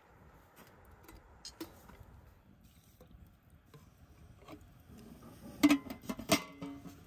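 Aluminium lid set down on a large aluminium cooking pot: two loud metallic clanks a little over half a second apart near the end, with a short metallic ring after them.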